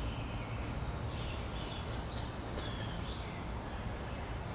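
Steady outdoor background noise with a single brief bird chirp, a short arching whistle, about two seconds in.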